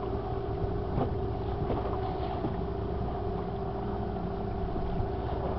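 A fishing boat's engine running steadily, a constant drone with a low rumble, and a few faint knocks over it.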